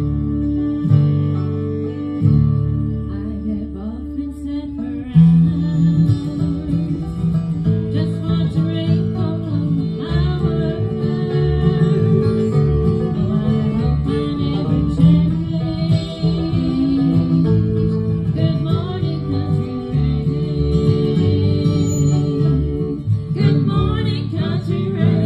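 Live bluegrass band playing: strummed acoustic guitar over upright bass, with other string instruments. The music gets fuller about five seconds in, and a voice sings over it.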